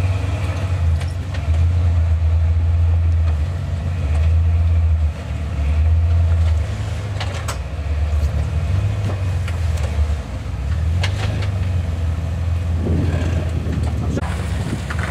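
Jeep Wrangler's engine rumbling low as it crawls over boulders, the note swelling and easing every second or two, with a few sharp knocks.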